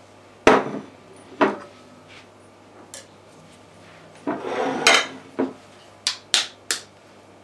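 A china bowl set down on a wooden table with two loud knocks, then a brief rustling scrape of handling and a few light, sharp taps near the end.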